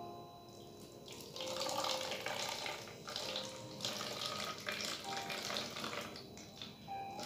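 Vinegar being poured from a jar into an empty plastic bottle: a steady splashing pour that starts about a second in and tails off near the end.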